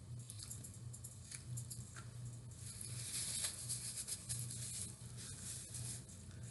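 Paper napkin rustling and crinkling as it is crumpled and worked between the fingers, loudest from about three seconds in. There are a few soft clicks before it and a low steady hum underneath.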